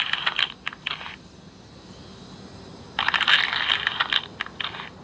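Sleigh bells shaken in two jingling bursts of about two seconds each, the second starting about three seconds in.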